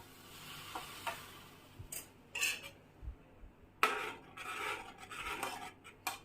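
Spoon stirring milk in a frying pan, clinking and scraping against the pan: a few light clinks at first, then a longer spell of scraping near the end.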